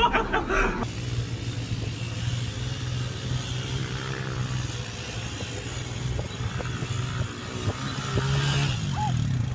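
Sport quad (ATV) engine running at a steady pitch as it drives through soft sand, getting somewhat louder near the end.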